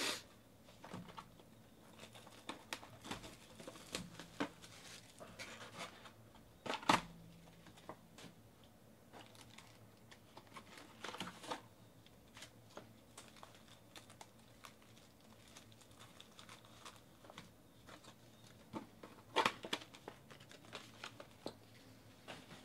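2018 Panini Select football card packs and their cardboard boxes being handled and unpacked: crinkling and rustling of the pack wrappers with scattered taps and knocks, the loudest about seven seconds in and again a few seconds before the end.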